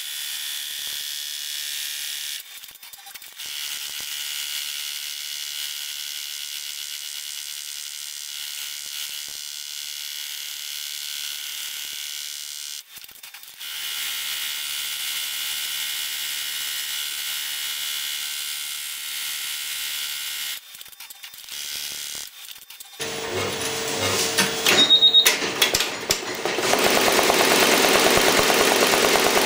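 Multi-needle embroidery machine stitching at speed in sped-up footage, a steady high-pitched mechanical whirr. It stops briefly three times, as the machine pauses between thread colours. Near the end it becomes louder and fuller.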